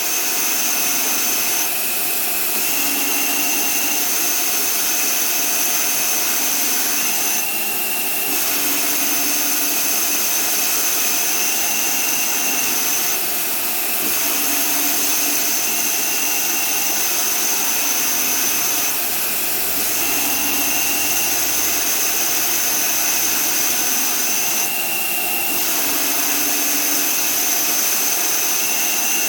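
Small Hercus CNC lathe running and cutting 2011 aluminium alloy: a steady machine noise with a high whine that drops out briefly about every five to six seconds, in a repeating cycle.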